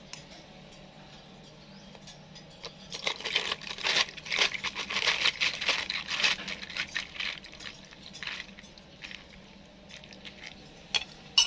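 Thick mocha mixture poured from a measuring jug over a plastic cup packed with crushed ice: the liquid splashes and the ice crackles and clinks as it settles, busiest from about three to eight seconds in, then a couple of sharp clicks near the end.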